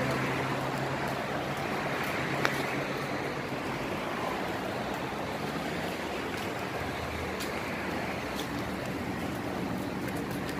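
Steady road traffic noise of a city street, with one sharp click about two and a half seconds in.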